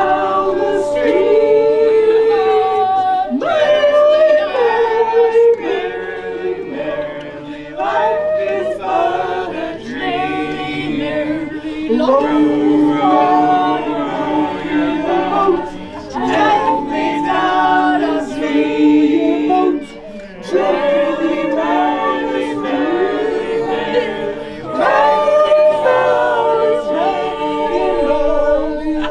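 Music: a choir of several voices singing in harmony, with brief breaks between phrases.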